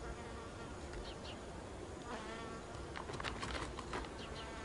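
Flying insects buzzing faintly in the open air, with a fly passing closer about two seconds in.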